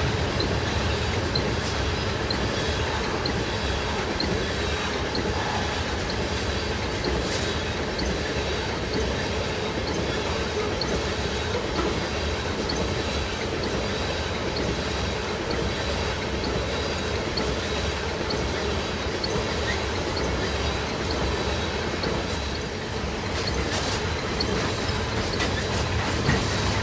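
Loaded freight train of tank cars rolling past close by, its steel wheels running steadily on the rails, with a faint thin wheel squeal over the noise.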